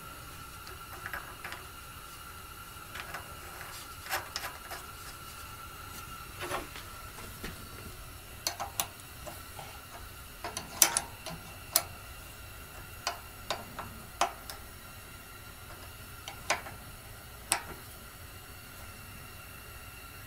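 Light, irregular clicks and taps of a combination wrench on the 10 mm bolt of a Honda GX240 carburetor's fuel sediment bowl as the bowl is refitted and the bolt is tightened snug.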